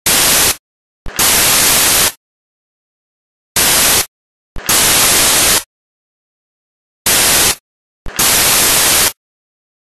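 Six loud bursts of hissing white-noise static, each half a second to a second long, switching on and off abruptly with dead silence in between.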